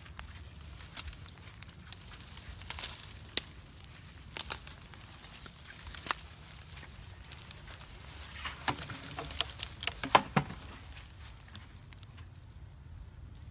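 Footsteps through dry leaves, twigs and undergrowth, with irregular crackles and snaps and rustling brush.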